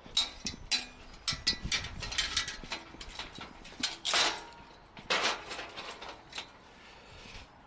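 Aluminium ladder being handled: a run of irregular metallic clicks and clanks, with two longer scrapes about four and five seconds in, then quieter towards the end.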